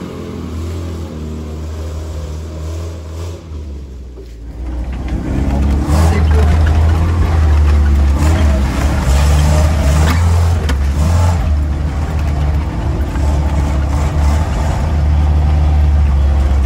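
Land Rover Series III's 2.25-litre four-cylinder petrol engine pulling along a rough forest track, heard first from outside as the vehicle drives away. After a cut about five seconds in it is heard from inside the cab, much louder: a low, steady engine drone with scattered knocks as the vehicle bumps along.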